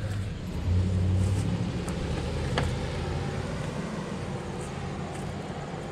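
A vehicle engine running as it sets off, louder about a second in and then slowly easing off, with a single sharp click partway through.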